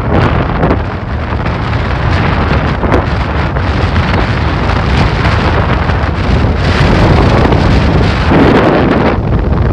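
Strong wind buffeting the microphone, a loud low rumble that rises and falls in gusts, heaviest in the second half.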